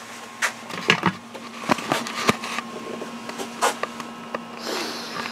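Handling noise from a handheld camera being picked up and carried: scattered clicks, knocks and rustling, over a low steady hum.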